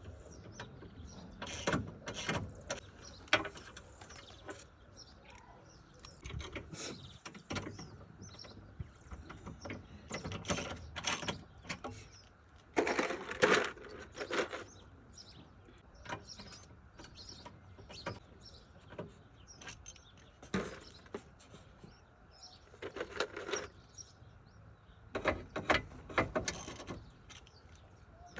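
Irregular clicks, clanks and rattles of hand tools and metal parts, spread through the whole stretch with louder clusters partway through and near the end.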